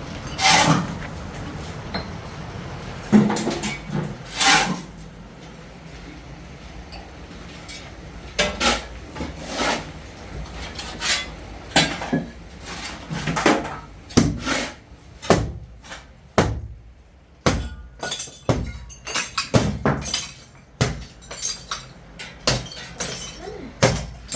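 Irregular series of sharp knocks and clinks of hard objects striking one another, a few spaced strikes at first, then coming more often through the second half.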